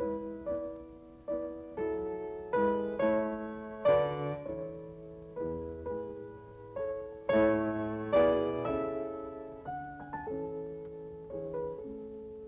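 Background piano music: a slow melody of notes and chords, each struck and then fading away.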